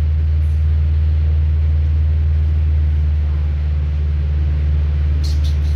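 Steady low hum and rumble inside a Metrovalencia Line 10 tram.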